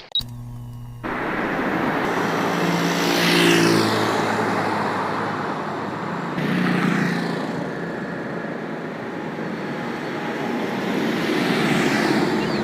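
Road traffic: vehicles pass one after another, each swelling and fading with a falling pitch as it goes by, about three passes.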